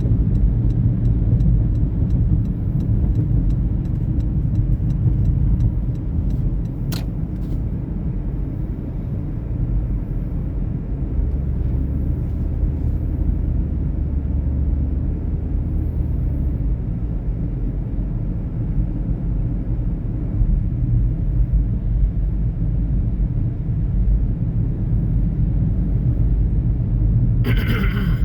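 Steady low rumble of a vehicle on the move, with faint regular ticking over the first few seconds, a single sharp click about seven seconds in, and a brief louder sound near the end.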